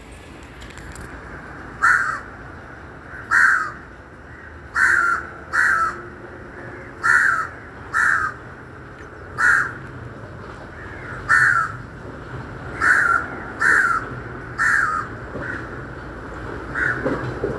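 A bird calling over and over, about a dozen loud short calls roughly a second apart, beginning about two seconds in. Near the end the rumble of an approaching train rises underneath.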